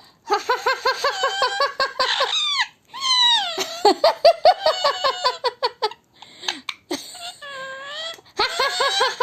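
Pet parrot mimicking human laughter: quick runs of high-pitched 'ha ha ha' syllables, about six a second, with one longer drawn-out call near the end.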